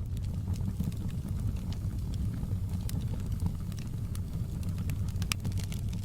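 Wood fire burning in a fireplace: a steady low rumble of flames with scattered small crackles and pops from the logs, the sharpest pop a little after five seconds in.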